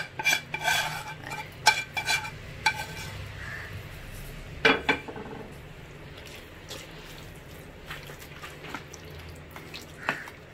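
Spoon scraping and tapping against a non-stick pan as the fried gram-flour and ajwain mixture is scraped out, with a louder knock about halfway through. It is followed by the spoon stirring chicken pieces through a thick yogurt marinade in a plastic bowl, making soft clicks and squelches.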